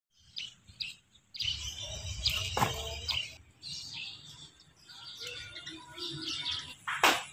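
Small birds chirping and tweeting in short, scattered calls, with a low rumble about a second and a half in and a single sharp, loud knock just before the end.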